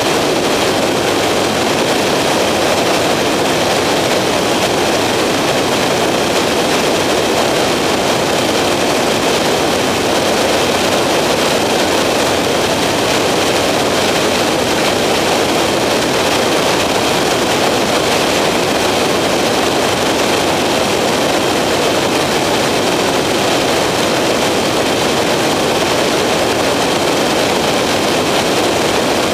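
Skyranger microlight in flight, heard from on board: a steady drone of its engine mixed with rushing airflow, with a faint high whine riding on top.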